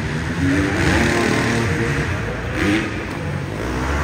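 Dirt bike engines revving on a motocross track, the pitch rising and falling as the throttle opens and closes.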